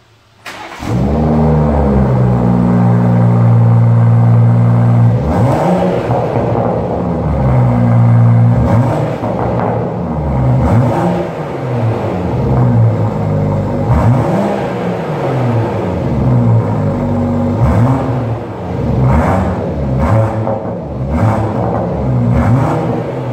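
BMW 540i G30's 3.0-litre turbocharged straight-six, breathing through a custom aftermarket exhaust with quad tailpipes. It starts up about half a second in and runs at a steady fast idle for a few seconds, then is revved in repeated quick throttle blips, about one a second, each rising and falling.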